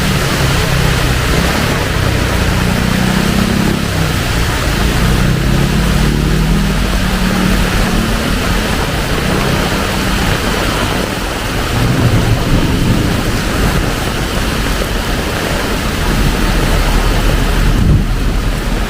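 Heavy tropical rain pouring steadily, with a low rumble underneath for the first several seconds and again about twelve seconds in.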